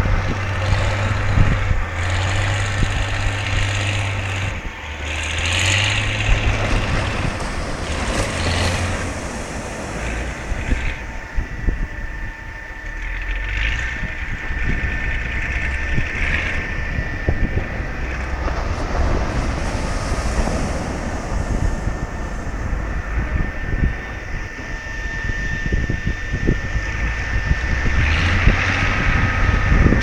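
Wind buffeting the microphone with a constant low rumble, over the wash of waves breaking on a sandy shore.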